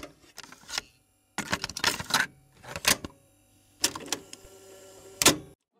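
Irregular clusters of sharp crackles and clicks separated by short gaps, the loudest cluster near the end, stopping abruptly.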